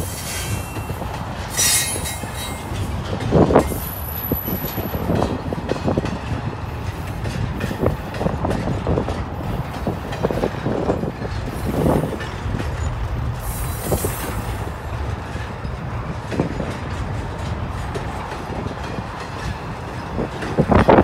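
Double-stack intermodal freight train's container well cars rolling past: a steady rumble of steel wheels on rail with repeated clunks and knocks, and brief high-pitched wheel squeals in the first few seconds.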